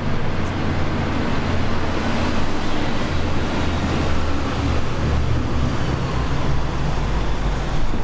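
Boat engine running with a steady low drone, under a continuous rush of water and wind.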